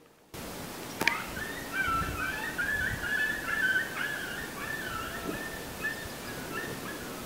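A high, wavering animal call that warbles up and down without a break for about six seconds, over a steady outdoor hiss, with a sharp click about a second in.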